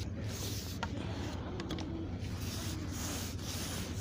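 Carbon fishing pole being shipped out: faint rubbing and a few light ticks as it is pushed out, over a steady low rumble.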